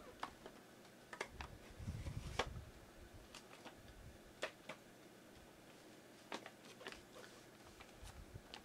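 Faint, scattered clicks and light taps of small objects being handled, with a soft low rumble about two seconds in.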